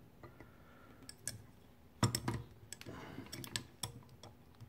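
Light clicks and taps of metal fittings as a CO2 gas regulator is handled and turned, with a small cluster of knocks about two seconds in.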